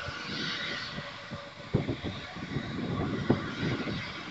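Distant jet engines of a taxiing Boeing 787 airliner running at low power, a steady hiss and whine, with gusts of wind buffeting the microphone in irregular low rumbles.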